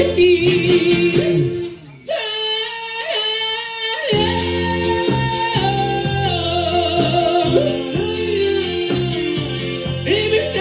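A live band plays a song while a male singer belts a long held note into the microphone over guitar and keyboard. About two seconds in, the band briefly drops away under the voice, then comes back in full about four seconds in and carries on with the sung melody.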